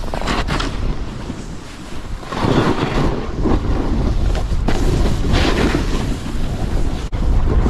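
Snowboard sliding down a groomed slope: the board's base and edges hissing and scraping over the snow in surges as it carves, under a steady rumble of wind on the microphone. The sound drops out for an instant near the end.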